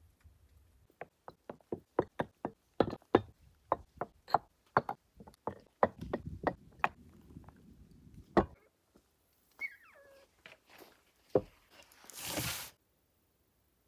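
Terracotta clay pots and lids knocking on a wooden plank table as they are set down one after another: a quick, irregular run of hard knocks, thinning to a few single knocks. A short rushing noise near the end.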